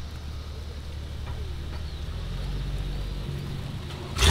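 A vehicle engine idling with a steady low hum, with faint voices in the background. A much louder sound cuts in right at the end.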